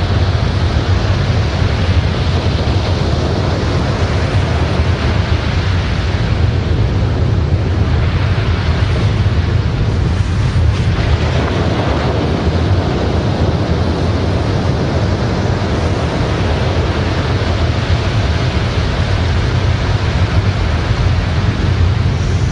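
Loud, steady rushing noise with a deep low rumble underneath, hardly changing in level.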